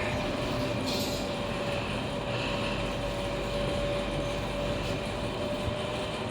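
Fuji passenger lift car travelling in its shaft: a steady running rumble with a faint, even whine held on one pitch.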